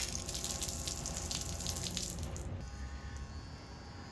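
Water running from a DIY PVC faucet fed by a 12-volt submersible pump, the stream hissing and splashing down. About two and a half seconds in the sound changes to a softer, duller splash.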